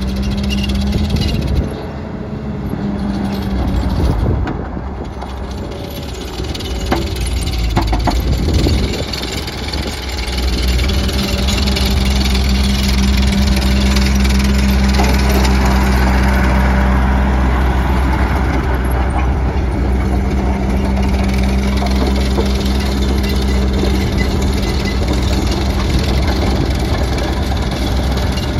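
ASV SR80 Posi-Track compact track loader's diesel engine running as the machine drives about. It drops quieter for a few seconds early on and then runs louder and steady for the rest. A few sharp knocks sound about a quarter of the way in.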